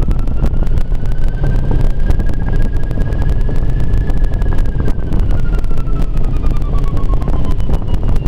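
Steady rush of airflow around a glider's cockpit and canopy in flight, with a thin electronic variometer tone that slowly rises in pitch and then falls back over the last few seconds.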